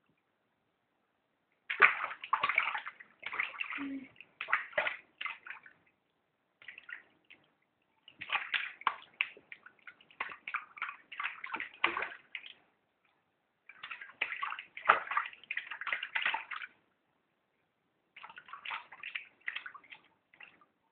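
Bathwater sloshing and splashing in a tub as a child is bathed, in irregular bursts of splashes with short pauses between them.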